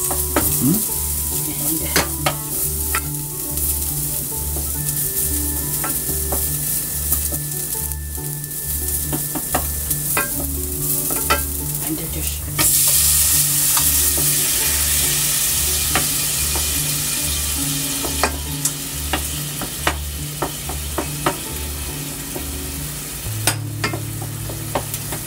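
Ginger frying in a little hot oil, sizzling and stirred with a spatula that clicks against the pan. The sizzle turns suddenly louder about halfway through.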